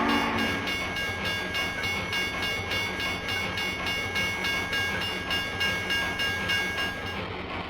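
A train horn cuts off just as a bell starts ringing rapidly, about four strokes a second, over the low rumble of a running train; the bell stops about seven seconds in.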